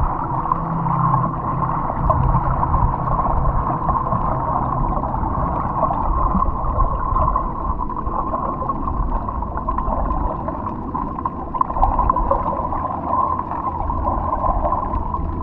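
Steady underwater ambience: a constant low rumble with dense gurgling and bubbling, and faint steady tones that do not change.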